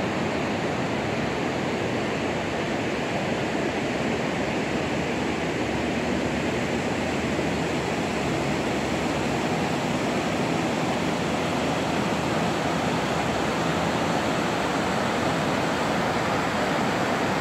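Steady rush of a waterfall and whitewater rapids.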